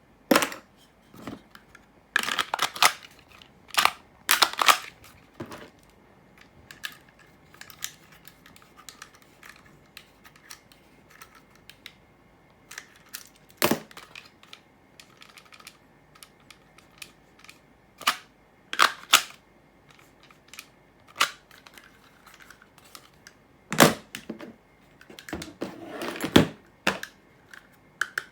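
Sharp plastic clicks and short scrapes at irregular intervals, some in quick clusters, as an airsoft M4 magazine is pushed into and drawn out of a kydex pouch fitted with a PLA retention insert.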